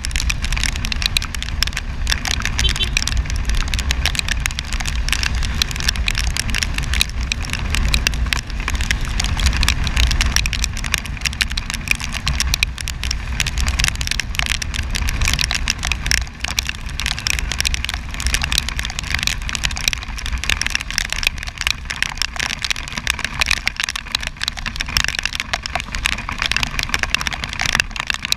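Riding a motorcycle in the rain: a steady low wind rumble on the microphone, with a dense crackle of raindrops and spray striking it.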